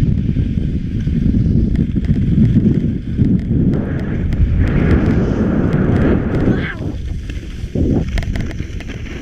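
Wind buffeting the microphone during a downhill ski run, a loud low rumble. Skis hiss over the snow, swelling about halfway through and fading near seven seconds in.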